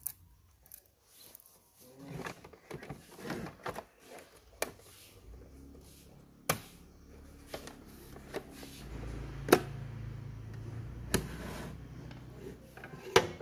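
Sharp plastic clicks and scraping from hands handling a Toshiba RT-SX26 radio cassette recorder's front panel and working its slide switches. There are about six clicks, and a low hum rises for a few seconds past the middle.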